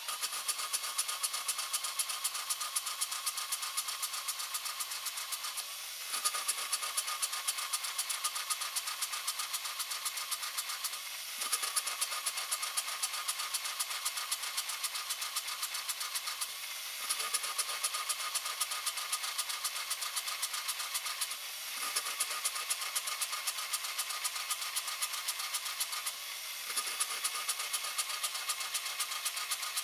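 Cadillac Escalade's 6.0 L LQ9 V8 running with a fast, even ticking, broken by a brief dip about every five and a half seconds.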